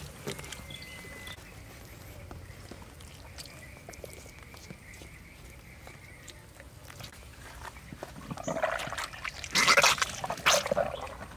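Raw beef intestine being squeezed and rinsed by hand: quiet wet handling at first, then, about eight seconds in, loud bursts of water gushing and splashing out of the intestine.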